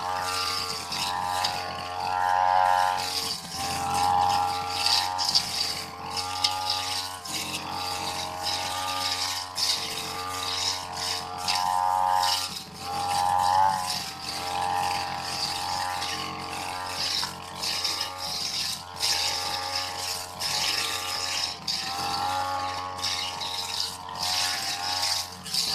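Backpack petrol brush cutter fitted with a metal cutting blade, running continuously. The engine note rises and falls every second or two as the blade is swept through tall, thick grass, with frequent short ticks throughout.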